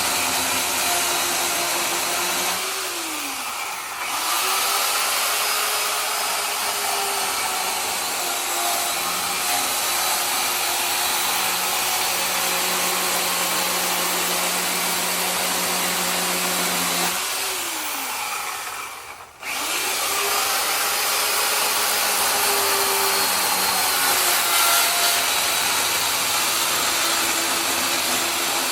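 Worx electric chainsaw running as it carves wood. Twice the motor winds down with a falling pitch and spins back up: about three seconds in, and again around eighteen seconds in, when it almost stops.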